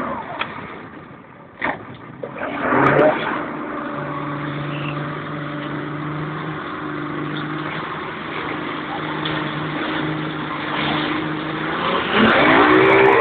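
Racing speedboat's engine running at a steady pitch over a rush of wind and water. About twelve seconds in, its pitch rises as it revs up.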